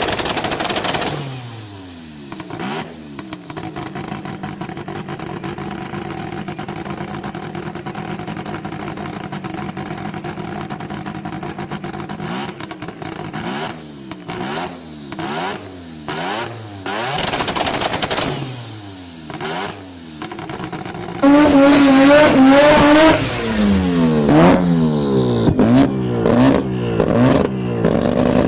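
Wankel rotary engine idling with repeated short blips of the throttle, the revs rising and falling over a steady idle. About 21 seconds in it turns much louder, revving up and down quickly.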